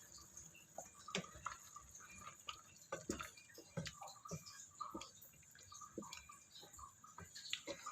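Faint cooking sounds: irregular light clicks and small knocks, with a little dripping liquid.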